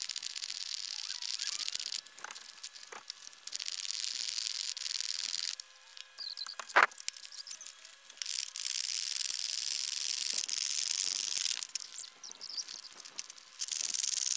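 Rustling and rubbing of plastic wrapping and the folded PVC fabric of a new inflatable dinghy being unpacked and handled, coming in stretches of a couple of seconds with short pauses between. A single sharp click about seven seconds in.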